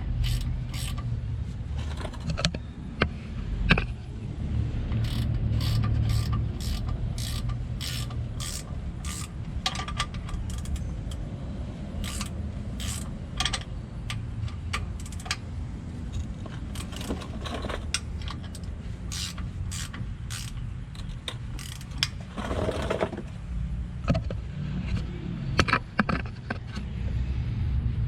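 Hand tools working on a pickup's drive shaft: scattered sharp metallic clicks and ratchet strokes, some coming a few a second, over a steady low hum.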